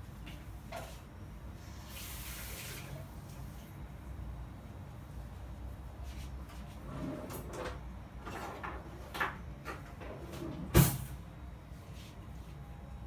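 Kitchen handling sounds: a short hiss about two seconds in, then a run of knocks and clatters, the sharpest one near the end.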